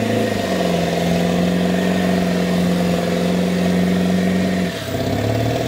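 Pickup truck engine running under load while towing a heavy armored car. The engine note holds steady and shifts in pitch about half a second in and again near the end.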